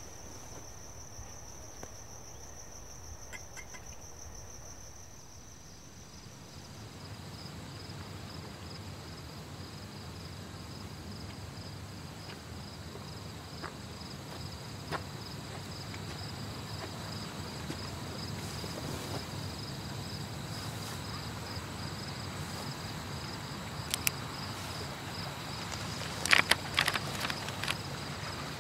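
Crickets trilling steadily, a slightly lower trill taking over about six seconds in, over a low, even rumble. A quick cluster of sharp clicks stands out near the end.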